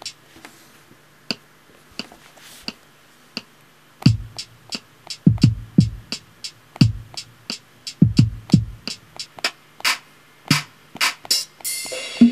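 Hip hop drum-machine samples from the Beatmaker 2 app, triggered by fingers on the iPad's pads. For the first few seconds there are only sparse short high ticks. About four seconds in, deep kick thumps and snare hits join in a loose, uneven beat, with a brief hissy burst near the end.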